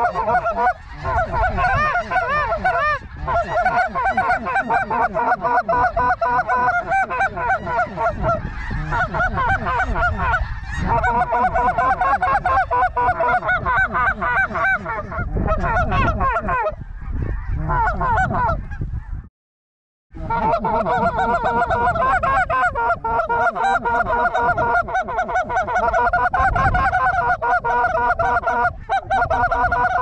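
A large flock of snow geese calling overhead, a dense, continuous chorus of honks, with wind rumbling on the microphone. The sound cuts out completely for under a second about two-thirds of the way through.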